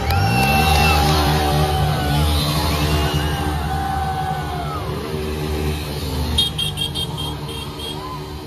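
Motorcycle engine revved up sharply and held at high revs for about six seconds, dipping slightly now and then before dropping away, with music playing over it.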